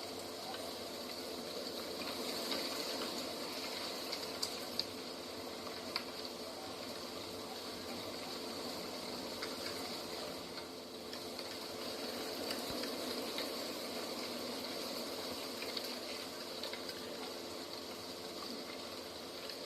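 Steady rushing outdoor nature ambience with a few faint clicks scattered through it.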